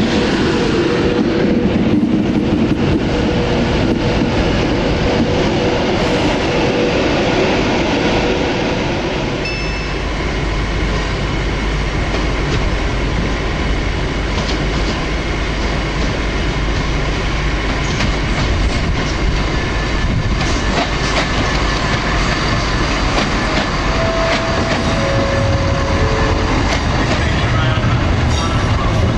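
A Class 390 Pendolino electric train running along the platform with a steady whine and wheel rumble. About ten seconds in, the sound gives way to the deeper rumble of a Class 170 Turbostar diesel multiple unit coming into the station, with its wheels clacking over the rail joints.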